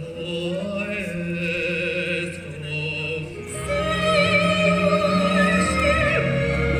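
Music: a sustained, orchestral-sounding passage with held notes that swells louder about halfway through as a low bass comes in.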